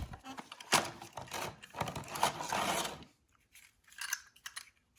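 Model train packaging being opened and handled: rustling and crinkling with small clicks that stop about three seconds in, followed by a few faint ticks.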